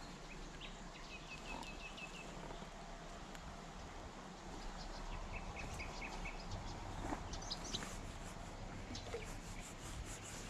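Small birds chirping faintly outdoors: a quick run of high chirps about a second in, another about five seconds in, and a few higher chirps around seven seconds, over a steady faint background hiss.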